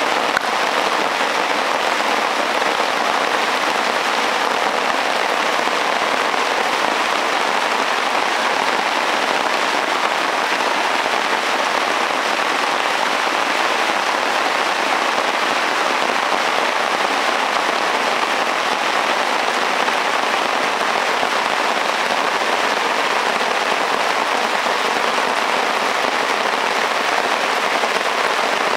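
Hard tropical rainforest rain, heard from under a tarp: a dense, steady hiss of drops on foliage and on the tarp overhead, unchanging throughout.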